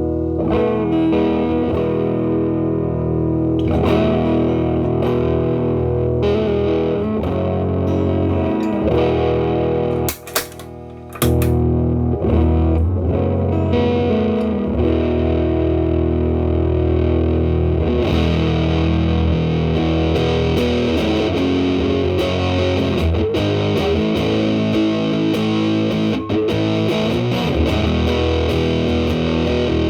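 Electric guitar, a Telecaster with single-coil pickups, played through a Big Muff Pi fuzz pedal into a Marshall Valvestate amp's clean channel: thick, sustaining fuzz-distorted notes and chords, with the pedal's Sustain knob set near maximum. A brief break with a couple of clicks comes about ten seconds in.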